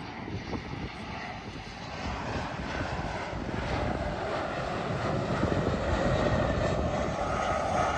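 Twin-engine jet airliner flying low overhead on final approach to land, its engines a steady rushing noise that swells gradually, loudest near the end.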